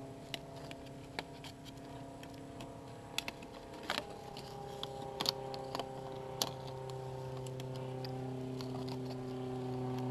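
Sharp, irregular clicks and knocks from bamboo poles and twine being handled while a bamboo table is lashed together, over soft background music with sustained chords that change twice.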